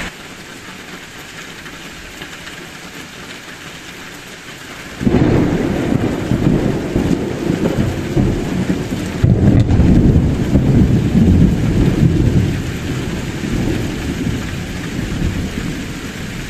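Steady heavy rain, then about five seconds in a loud rumble of thunder breaks in suddenly, rolling on and swelling for several seconds before slowly fading back under the rain.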